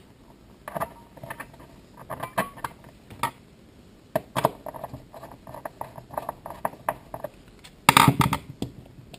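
Small metal parts clicking and knocking on a wooden tabletop while a screw is driven into a small aluminium cylinder with a screwdriver. Scattered light clicks, with a louder burst of knocking and rattling near the end as the part is handled.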